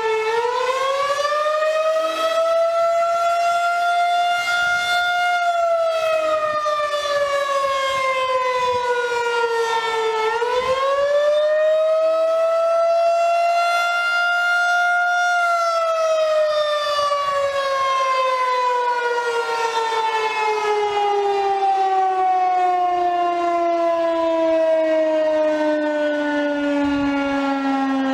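Outdoor warning siren with a rotating single horn sounding a wail for a tornado drill: the pitch rises, falls, rises again about ten seconds in, then falls slowly as it winds down.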